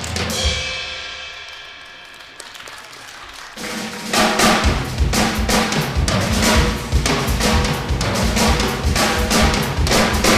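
Drum kit: a ringing hit fades away over the first few seconds, then fast drumming with heavy bass-drum kicks starts about three and a half seconds in and keeps up a dense, driving rhythm.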